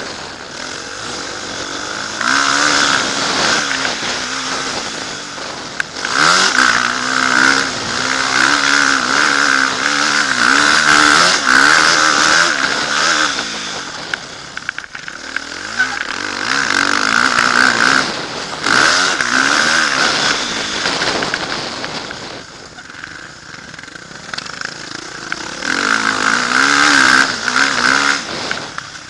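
Motocross bike engine under hard riding, heard from the rider's helmet camera: revving up and down with the throttle, easing off briefly about halfway through and again for a few seconds later on before pulling hard again.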